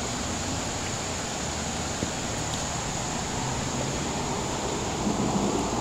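Steady outdoor background noise with a thin, steady high-pitched tone over it and a faint low hum coming and going; no distinct event stands out.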